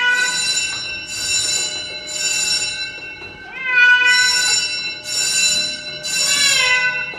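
Domestic cat meowing loudly and repeatedly, about six drawn-out calls roughly one a second.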